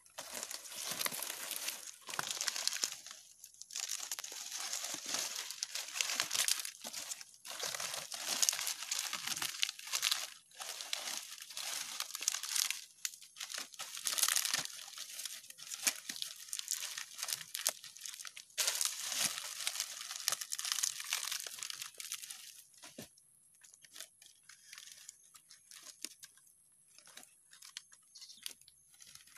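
Fresh green palm fronds rustling and crackling as they are handled, woven and pulled tight by hand, in busy irregular bursts; the handling grows quieter with only scattered small clicks for the last several seconds.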